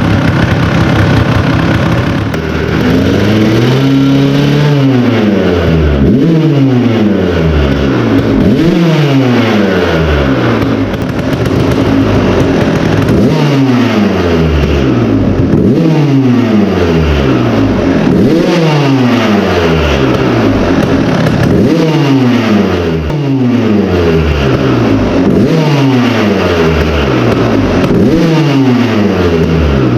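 2001 Kawasaki KX250 two-stroke engine being revved over and over, its pitch climbing and dropping back about every two seconds, running on a freshly cleaned and oiled air filter during a tune-up.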